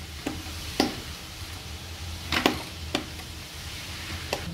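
A baby's open hand slapping a painted wall, about five sharp slaps at an uneven pace, the loudest about a second and two and a half seconds in.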